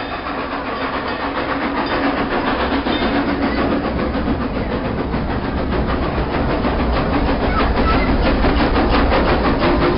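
Steam train rolling, heard from aboard an open car: a steady rumble and hiss that grows louder, with a quick regular beat of chuffs or rail clicks in the second half.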